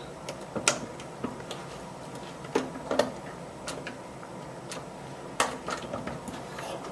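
Scattered light clicks and knocks, about a dozen at irregular intervals, as a wall-mounted chemical dispenser is handled and hung on its mounting screws.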